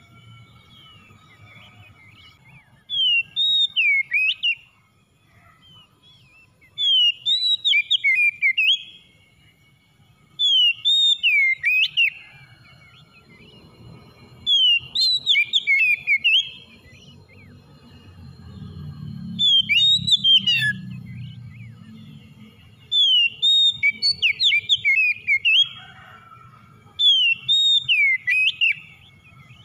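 Oriental magpie-robin (kacer) in full song: seven loud phrases of quick, rising and falling whistled notes, each about two seconds long and coming about every four seconds. A faint low rumble lies underneath, heaviest around the middle.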